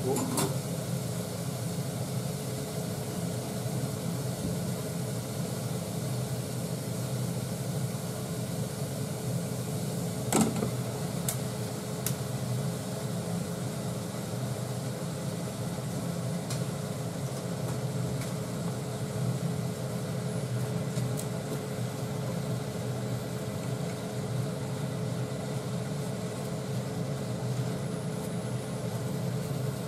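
Steady hum of an induction cooktop heating a pot, its cooling fan running with a faint held tone. One sharp knock of cookware comes about ten seconds in.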